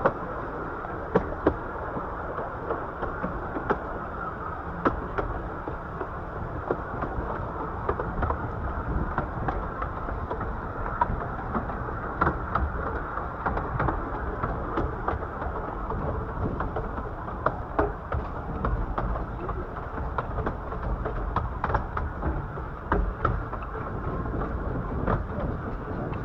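A 15-inch-gauge Bure Valley Railway train running along the line, heard from a carriage: a steady rumble of wheels on rail with frequent irregular clicks and rattles.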